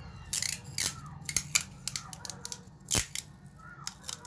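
Adhesive tape being pulled off its roll and wound tightly around a PVC pipe: a run of short, irregular sticky crackles and rasps, with one duller knock about three seconds in.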